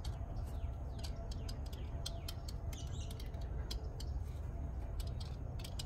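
Quick light clicks and scrapes of a metal pick, wrapped in paper towel, working around the injector bore of a Mercedes 300D diesel cylinder head to clear carbon, with a few short high chirps among them, over a steady low hum.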